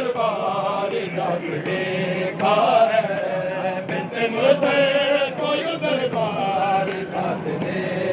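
Male voices chanting a nauha, a Shia mourning lament, in a sustained melodic line with gliding pitch, accompanied by matam, hands striking chests.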